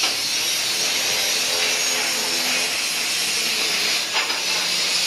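Steady hiss of DC TIG welding on thick stainless steel, even throughout, with a few faint clicks about four seconds in.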